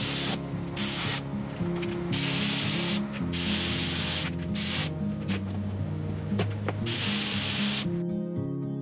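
Compressed-air gravity-feed spray gun spraying top-coat paint in a series of short hissing bursts, each under about a second, stopping shortly before the end.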